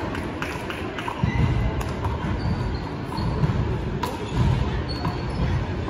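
Sports-hall ambience on an indoor wallball court: scattered thuds of a small rubber ball hitting wall and floor, a few brief high squeaks, and a low murmur of the hall.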